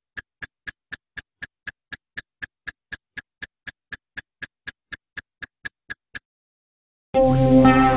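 Sharp ticking sound effect of a loading counter, about four ticks a second, which stops about six seconds in. After a short silence, loud music with a rising sweep starts about seven seconds in.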